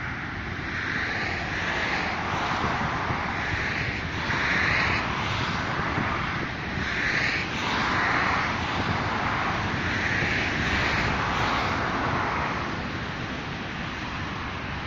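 Steady outdoor rushing noise with a low rumble beneath, swelling and easing every second or two.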